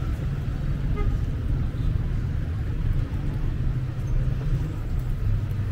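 City street traffic noise: a steady low rumble of cars on the road.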